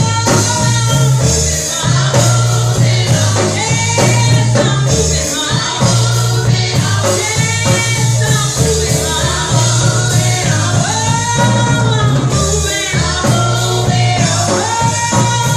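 Live gospel singing by a group of voices over a band, with a steady bass line moving in steps underneath.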